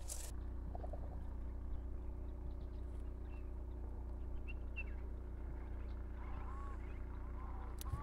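Birds calling at dusk in open grassland: a few short, high chirps, then several arched, lower calls near the end, over a steady low hum.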